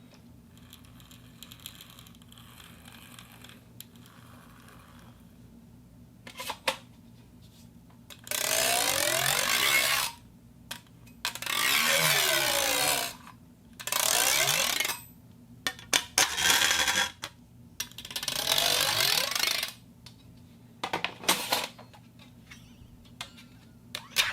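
Thin steel sheet being flexed as a foley effect: five bouts of loud metallic rumbling, each one to two seconds long with a wavering pitch, then a few sharp clicks and taps.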